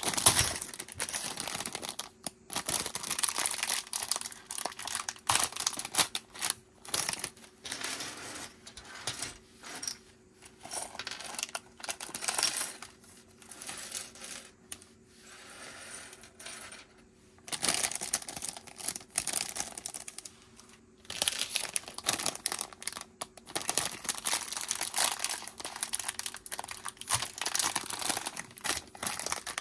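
Plastic Lego parts bags crinkling as they are handled and opened, with loose Lego pieces clicking and clattering against each other in short irregular bursts and brief pauses.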